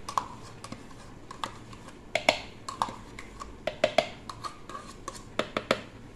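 Scattered light clicks and taps of a plastic yogurt pot being handled as vanilla yogurt is added to a blender jug, busiest about two seconds in, around four seconds and near the end.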